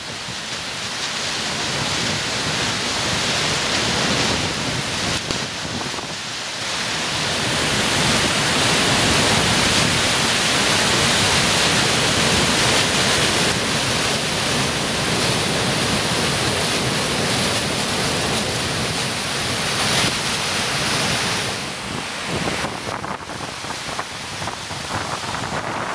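River water pouring over a weir and rushing through rocky cascades: a loud, steady rush of falling water that builds over the first several seconds and eases slightly near the end.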